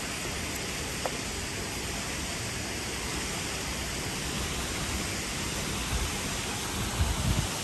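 Steady rushing outdoor noise, with a few low bumps near the end.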